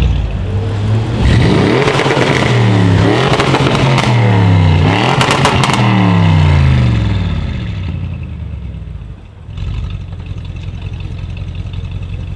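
Audi RS7's twin-turbo 4.0 V8, through a decat Milltek straight-pipe exhaust, being revved hard while standing, in a quick series of rising and falling blips with crackles as the revs drop. It then settles back to a steady idle.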